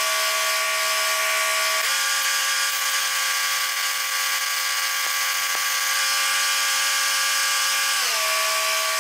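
Electric power tool motor running steadily with a whine over a hissing rush as it works the steel; its pitch steps up about two seconds in and drops back near the end.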